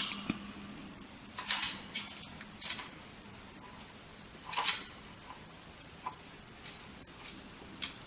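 A scatter of short rustles and clicks, about seven of them, the loudest at about a second and a half and near five seconds in, over a faint steady hum.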